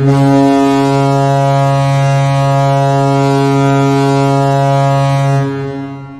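Toronto Maple Leafs arena goal horn: one long, low, steady blast that fades out near the end.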